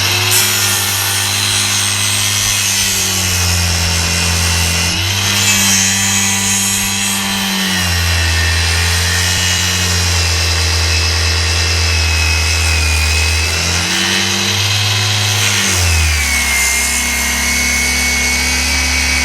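Angle grinder running continuously while cutting out the plastic grille section of a car's front bumper, its motor pitch dipping and recovering several times as the disc bites and eases off.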